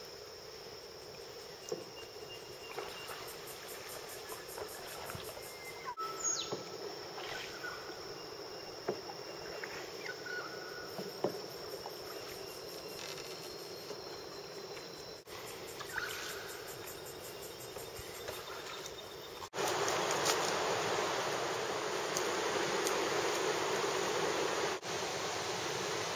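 Bush ambience: a steady high drone of insects with scattered short bird calls. About twenty seconds in it gives way abruptly to a louder, steady rush of running water.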